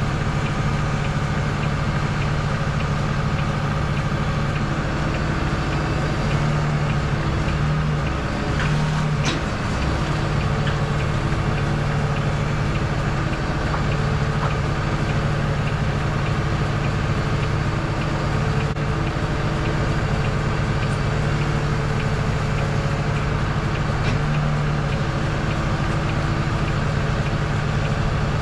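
Diesel engine of a Volvo FE 320 lorry running at a steady, even speed, with a couple of faint ticks.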